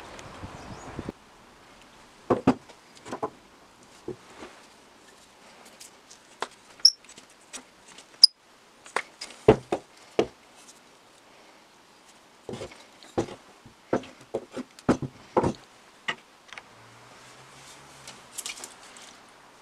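Irregular knocks and clicks as a rusty, unrestored Millers Falls No. 118 breast drill is handled and set down on a wooden workbench. The first second is a steady background hiss that cuts off suddenly.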